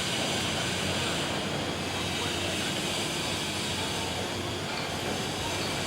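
GY-200-1A engineering drilling rig running with a steady, even mechanical drone and a low hum.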